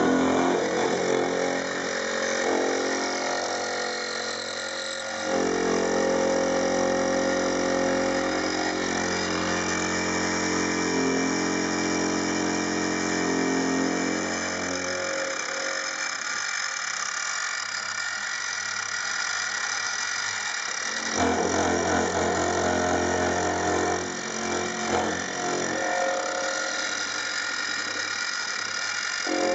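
Clarke CMD300 (Sieg X2) mini milling machine running with its end mill cutting a metal part: a steady motor whine throughout, with heavier, louder cutting noise in two stretches, from about five to fifteen seconds in and again briefly at about twenty-one seconds in.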